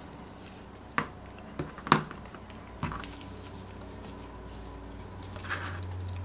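Sharp little metal clicks and taps as the parts of an OS FF-240 Pegasus model engine's crankcase are handled, four of them in the first three seconds, the loudest about two seconds in, over a low steady hum.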